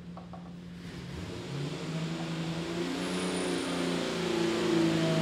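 Jeep 4.6-litre stroker inline-six running on an engine dyno: idling steadily at first, then about a second in the revs rise and the engine grows steadily louder as it is brought up under load.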